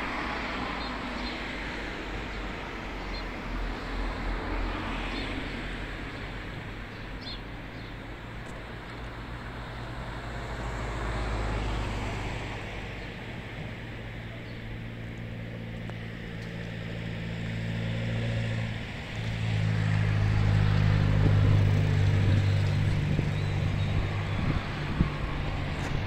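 Motor vehicle engine humming steadily over a low outdoor rumble, coming in about halfway through and growing louder in the last third.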